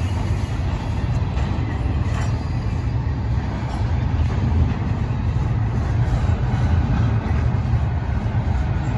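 Double-stack intermodal train's well cars rolling over a railway bridge: a steady low rumble with a few light clacks of wheels over the rails.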